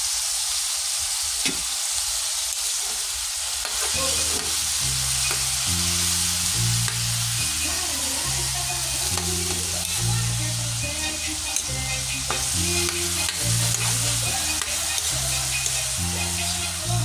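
Pork soft bones and onions frying in soy sauce in a wok: a steady sizzle with the scrapes and clicks of a spatula stirring and turning the meat against the pan. About four seconds in, low notes that change pitch about once a second come in under the sizzle.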